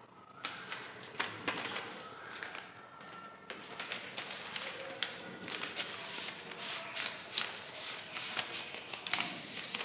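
A run of irregular taps and clicks with rustling, many in quick succession, the sharpest about a second in and near the end.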